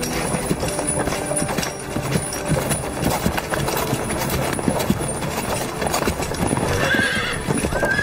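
Horses' hooves clip-clopping at a walk on a dirt road. A horse whinnies near the end.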